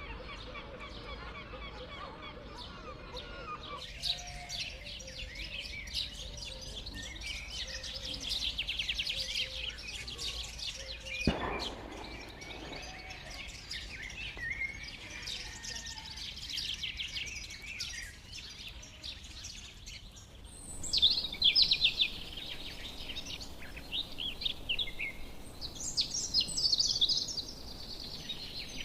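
Songbirds singing, with rapid high trills and chirps, loudest about two-thirds of the way in and near the end. A single sharp click sounds a little before the middle, and the background changes abruptly twice.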